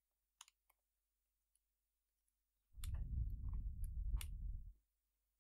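A few scattered computer keyboard keystrokes, sharp clicks spaced well apart. A low muffled rumble starts a little under three seconds in, lasts about two seconds and is the loudest sound.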